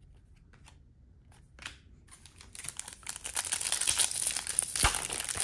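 Foil trading-card pack wrapper crinkling as it is torn open: a few faint clicks at first, then loud, dense crinkling from about halfway in, with a thump near the end.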